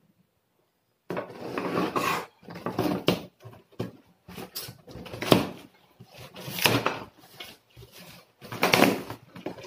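Taped cardboard box being pulled open by hand, starting about a second in: packing tape tearing and cardboard flaps scraping and rustling in a string of irregular bursts.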